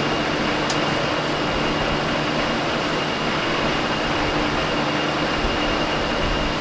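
Steady mechanical hum and hiss with a thin high whine held throughout, and a faint click about a second in.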